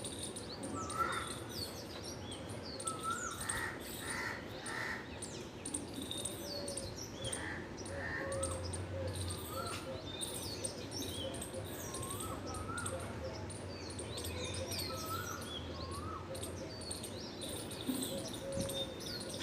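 Morning birdsong: many birds chirping and whistling at once, short rising and falling notes overlapping throughout, with three short calls in a row about four seconds in.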